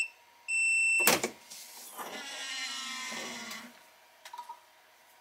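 Heat press timer giving high, evenly spaced beeps that signal the end of the 10-second press. The last beep ends about a second in, then a sharp clunk and about two seconds of mechanical whirring as the press opens.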